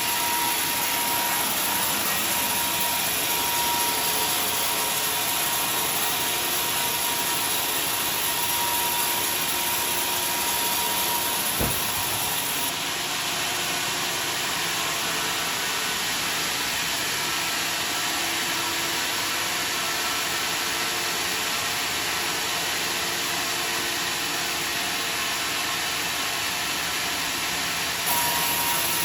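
Sawmill saw machinery running steadily with a loud, even mechanical noise. A high whine drops out about halfway through and comes back near the end, and there is one brief knock a little before the halfway point.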